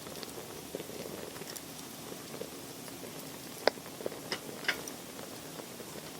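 Wood fire crackling steadily, with a few sharp pops, the loudest about halfway through and two more close after it.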